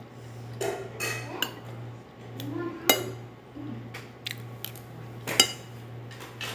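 Metal spoon and fork clinking and scraping against a plate while eating, with two sharp clinks, about 3 and 5.5 seconds in, standing out. A steady low hum runs underneath.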